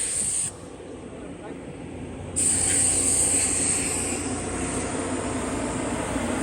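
Steady drone of machinery running at the rail grinder, with a high, thin whine over it. The whole sound drops away suddenly about half a second in and comes back about two seconds later.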